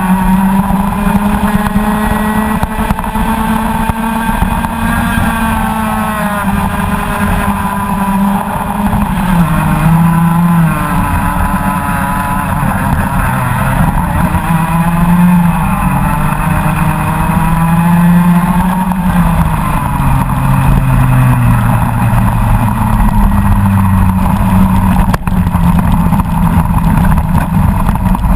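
Rotax Max Senior 125 cc two-stroke kart engine at racing speed, heard from the kart itself, its revs rising and falling over and over with the corners.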